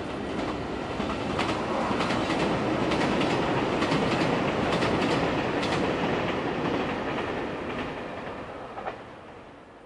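JR Shikoku 2700 series limited express diesel train running past on an elevated track, with rail joints clicking under the wheels. The sound builds to a peak midway and fades as the train moves away.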